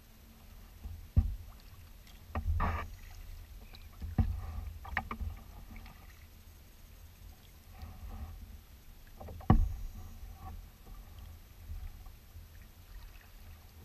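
Kayak paddling from on board a plastic kayak: a handful of sharp knocks of the paddle against the hull a few seconds apart, with water splashing and dripping from the paddle between them.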